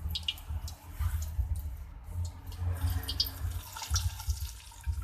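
Cooking oil being drained off from a frying pan, trickling and dripping, with scattered short clinks of metal against the pan.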